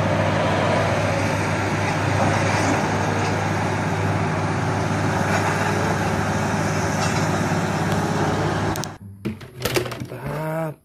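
Large mining haul truck's diesel engine running steadily with a low drone as the loaded truck drives along a dirt haul road. The drone stops abruptly about nine seconds in, followed by a few clicks of plastic toys being handled.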